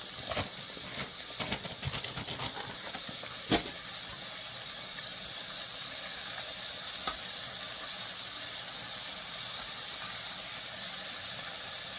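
Flour-battered chicken livers deep-frying in hot oil: a steady sizzle with scattered crackles in the first few seconds and one sharp click about three and a half seconds in.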